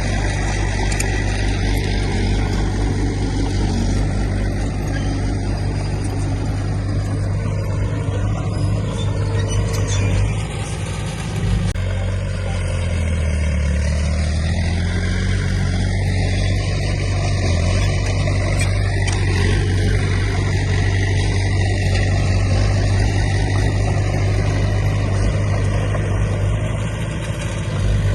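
Heavy earthmoving machine's diesel engine running under load, steady and loud. About halfway through the engine note drops briefly and then comes back up.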